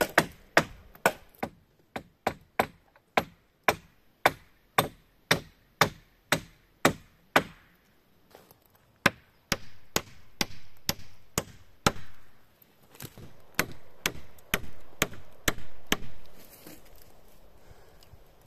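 Small hatchet chopping into wooden poles, trimming off branches: quick, even strikes about two a second, a short pause, then more uneven chopping that stops shortly before the end.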